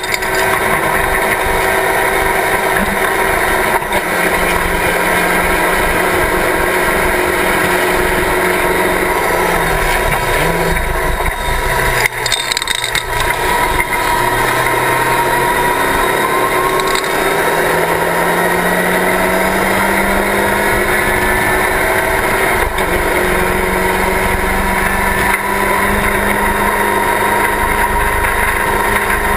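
Locost Seven-style race car's engine running hard at high revs, heard from the open cockpit. Its pitch climbs and drops with throttle and gear changes, with a short lift-off about twelve seconds in.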